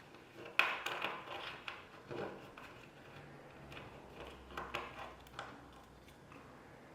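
Faint, scattered clicks, taps and short rustles of small plastic parts being handled: a new dishwasher turbidity sensor and its packaging.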